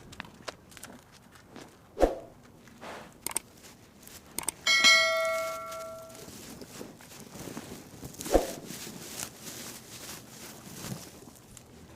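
Scattered thuds and shuffling steps, with a heavy thump about two seconds in and another about eight seconds in, and a single bell-like metallic ring about five seconds in that fades over a second and a half.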